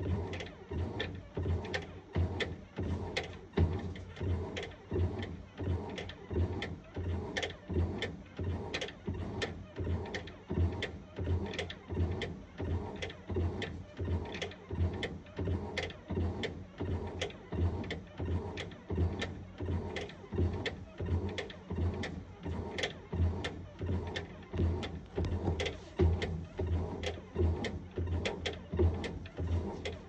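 Sharp ES-GV8D top-loading automatic washing machine running its wash, the motor driving the pulsator back and forth in a steady rhythm of about two strokes a second, each with a click over a low hum.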